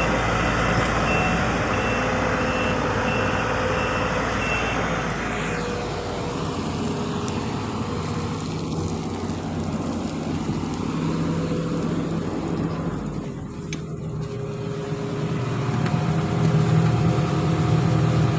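Sumitomo SH210 hydraulic excavator's diesel engine running steadily, with its travel alarm beeping in a regular series that stops about five seconds in. The engine grows louder near the end.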